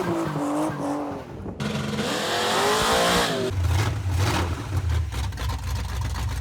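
Car engine revving with tyres squealing, in short pieces joined by abrupt cuts; a deep engine rumble takes over for the last few seconds and then stops suddenly.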